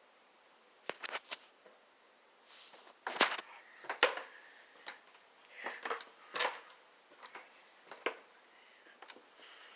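Irregular sharp clicks and knocks, some in quick pairs, with soft rustling between them: small objects being handled and moved about.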